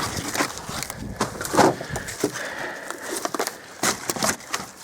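Irregular knocks, clicks and rustling as a person clambers and steps through piled junk. The loudest knock comes about a second and a half in.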